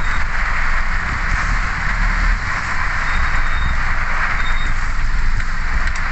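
Heavy rain drumming steadily on a vehicle's windshield and roof, heard from inside the vehicle, with a low rumble of engine and traffic underneath.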